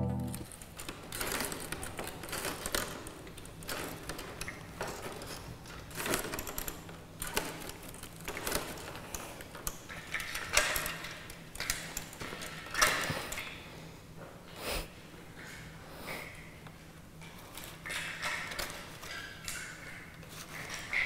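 Irregular taps, clicks and knocks of a life-size calf puppet's hooves and jointed legs on a hard floor as puppeteers walk it, with shuffling footsteps and a few short squeaks near the end.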